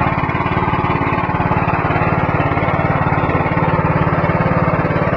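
Ajay riding lawn mower's engine running steadily in a fast, even pulse while the mower creeps along in first gear.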